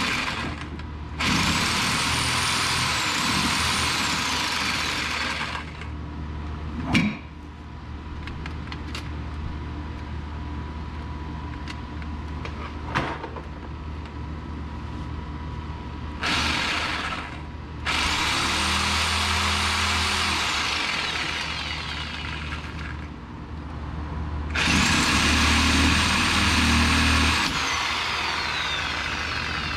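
Cordless reciprocating saw running in four long bursts, its motor whine rising and falling with the trigger as it cuts through metal in the front suspension. A couple of sharp metallic knocks come in the pauses between the bursts.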